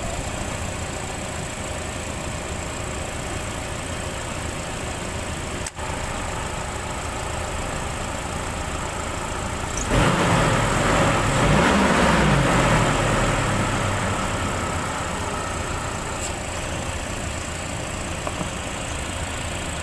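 UAZ engine idling with the air-conditioning compressor clutch being switched on and off. About ten seconds in, the engine note rises and falls over a few seconds, then settles back to idle. No whistle comes from the freshly greased compressor clutch bearing.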